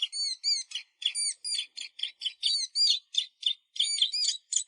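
Small songbirds chirping rapidly and incessantly, short high rise-and-fall calls several times a second from more than one bird, typical of young birds begging at feeding time.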